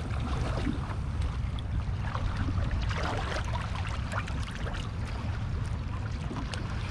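Steady low rumble of wind buffeting the microphone outdoors by the water, with a faint hiss above it.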